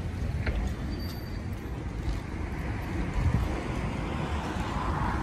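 City street traffic: a steady rumble of passing cars, with a few faint clicks over it.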